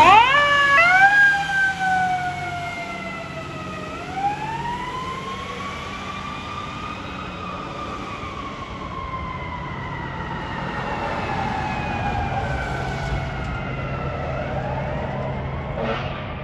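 Fire engine siren: a few quick rising whoops at the start, then a slow wail that falls, rises and falls again in pitch. It is loudest at the start and then settles lower.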